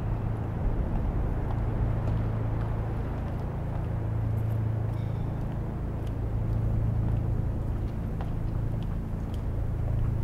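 Steady low rumble of street traffic with a constant low hum underneath, plus a few faint ticks.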